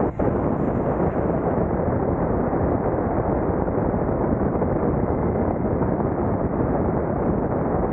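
Motorcycle riding at road speed, its engine buried under heavy, steady wind rush on the bike-mounted camera's microphone.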